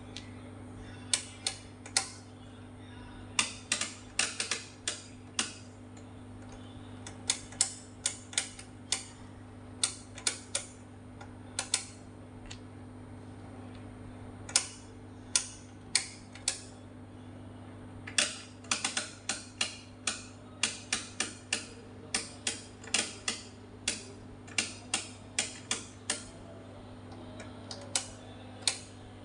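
Oscilloscope rotary selector knobs clicking through their detents as they are turned: irregular sharp clicks, often in quick runs of several, over a steady low hum.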